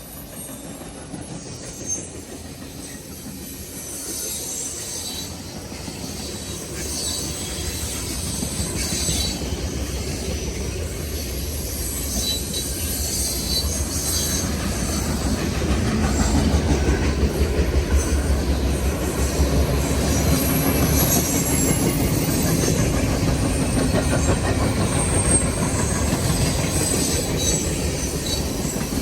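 CN M313 freight train's cars rolling past, wheels clicking over the rail joints with intermittent high wheel squeal. It grows louder through the first half and stays loud after that.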